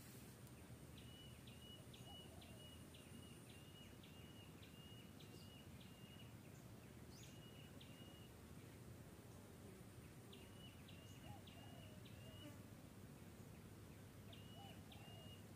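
Faint outdoor ambience with a bird repeating a short, high call in quick runs of about four notes a second, starting and stopping several times.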